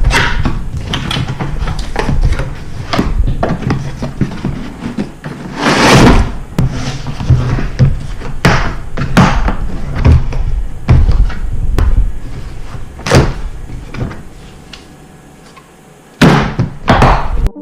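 Irregular knocks and bangs, with a louder burst of noise about six seconds in and two more near the end.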